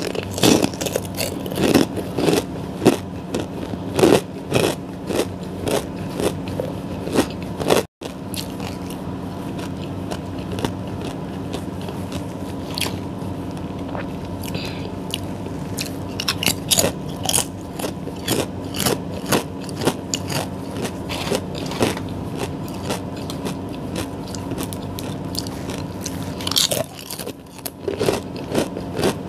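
Close-miked eating: bites and crunchy chewing in irregular clusters of sharp crackles, with scraping and rustling as hands reach into plastic food trays, over a steady low hum.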